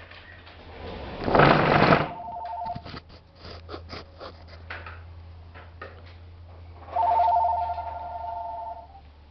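Telephone ringing with a two-tone trill, twice, about four seconds apart. A loud burst of rushing noise comes about a second in, just before the first ring, followed by a few light clicks and knocks.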